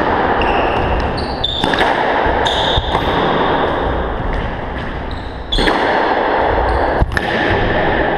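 Squash ball smacking off racquets and the court walls a few times, with short high squeaks of court shoes on the wooden floor, over a steady rushing background noise.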